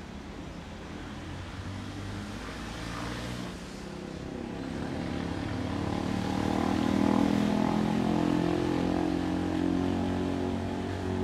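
Diesel locomotive engine running, its low drone growing louder to a peak about seven seconds in and then holding steady.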